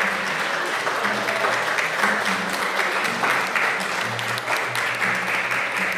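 Wedding guests applauding steadily as a crowd, with instrumental music playing low held notes underneath.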